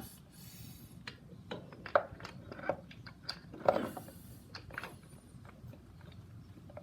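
Irregular metallic clicks and clinks from a motorcycle primary chain and sprockets being worked onto their shafts by hand, with a couple of louder knocks about two seconds and three and a half seconds in.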